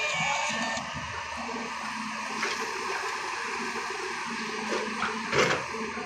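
Diesel hydraulic excavators running, with soil and stones being dumped from a bucket into a dump truck bed as a steady rushing noise, and a short louder clatter about five seconds in.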